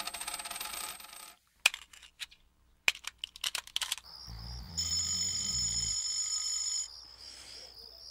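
Rapid metallic jingling and clinking that stops about a second in, then a few scattered sharp clinks. After that comes a steady electronic ringing tone lasting about two seconds.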